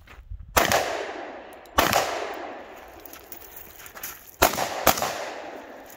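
Colt Delta Gold Cup 10mm pistol firing: a shot about half a second in, another near two seconds, then a quick pair about four and a half seconds in, each with a long echoing tail.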